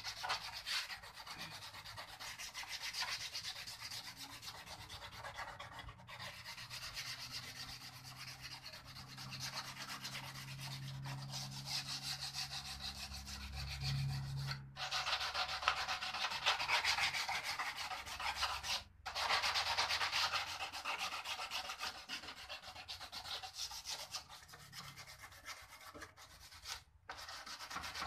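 Hand sanding of a cracked plastic car bumper: rapid back-and-forth scratching rubs, broken by a few short pauses. The surface is being roughened so the body filler will stick.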